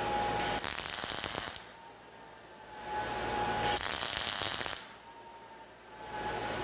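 Wire-feed welder laying two short tack welds on a square-tube steel frame. Each is a crackling, sizzling arc about a second long, the first starting about half a second in and the second about four seconds in.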